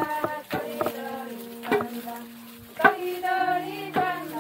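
Pemón traditional chant: several voices singing long held notes at different pitches, over a sharp percussive beat about once a second.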